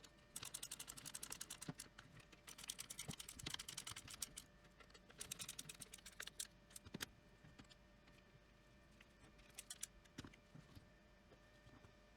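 Ratcheting screwdriver clicking in quick bursts of light, rapid clicks, driving screws that thread directly into the 3D-printed plastic of the vat.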